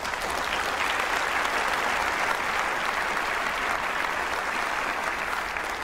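Large theatre audience applauding, a dense, steady clapping that starts suddenly and thins near the end.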